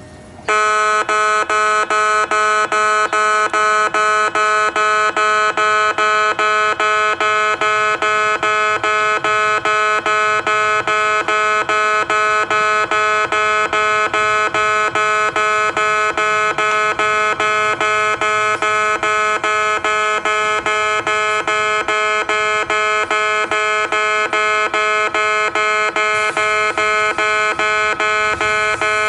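Electronic level-crossing warning bell of the common Japanese type, ringing a steady repeating ding at about three strokes a second, starting about half a second in. This is the new warning sound that replaced the crossing's old distinctive "pē-pē-pē" alarm.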